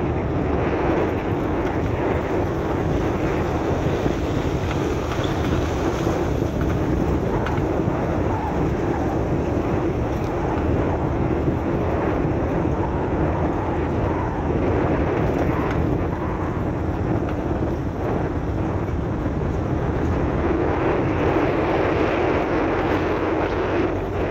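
A vehicle driving on an unpaved dirt road: steady engine and tyre noise with no breaks.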